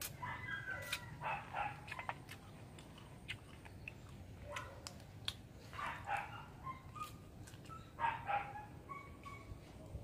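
A dog barking and yipping in short bouts: near the start, about six seconds in, and again about eight seconds in, with sharp clicks in between.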